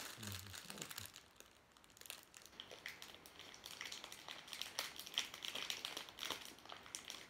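Thin clear plastic bag crinkling in the hands as it is opened: a run of faint, quick crackles, easing off for a moment after about a second.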